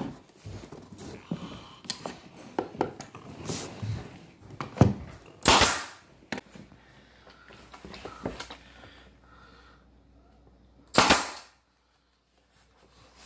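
Nail gun firing twice into quarter round trim, a few seconds apart, with lighter knocks and handling taps in between.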